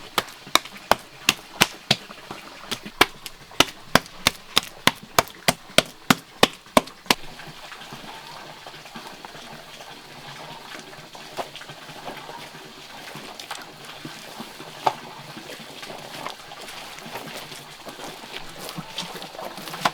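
A quick run of sharp knocks, about three a second, that stops about seven seconds in, followed by scattered faint taps and rustling.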